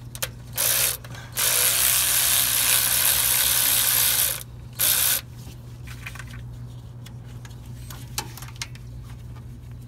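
Ratchet wrench spinning out a just-loosened fuel pump mounting bolt on a Chevy small block, in three runs of fast ratcheting: a short one about half a second in, a long one of about three seconds, and a short one about five seconds in, followed by light tool clicks.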